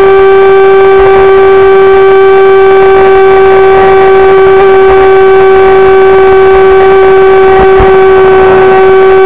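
Brushless outrunner motor driving an NQD 20 mm jet drive on an RC jet boat, whining at one steady high pitch at constant throttle, picked up very loud by the boat's onboard camera with water splash noise underneath.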